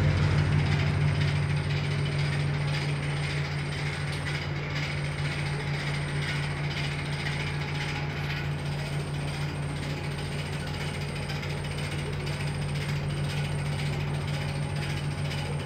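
Tugboat's diesel engine running steadily, heard on board as a low hum with a fast, even rattle over it.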